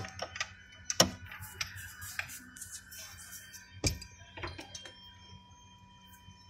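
Ratchet wrench and extension clicking and knocking while loosening a spark plug from the cylinder head, with a few clicks in the first couple of seconds and one louder knock just before four seconds in.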